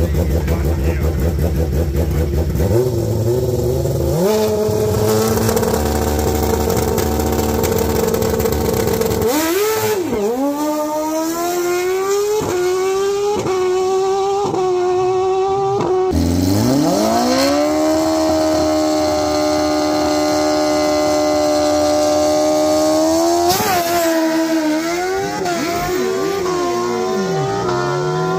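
Suzuki GSX-R1000 inline-four drag bike held at raised revs on the start line for several seconds, then launching, its pitch climbing and dropping through a quick series of upshifts. Then a second engine note rises and holds steady and high for several seconds, with more revving near the end.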